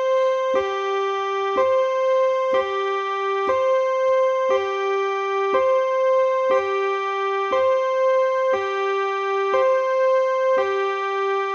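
Electronic keyboard with a piano-like voice playing a two-tone hi-lo siren imitation of a Swedish emergency vehicle, alternating a high note and a lower note a fourth apart, each held about a second.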